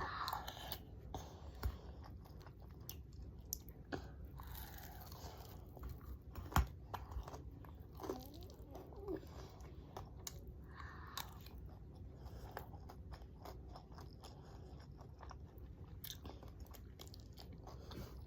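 A person chewing and biting a mouthful of fried noodles (mie goreng), rice and chicken nuggets, with scattered short clicks throughout.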